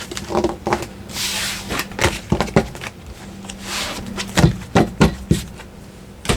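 Tarot cards being shuffled and handled: an irregular run of taps and clicks, with two brief rustling riffles about a second in and again near the middle.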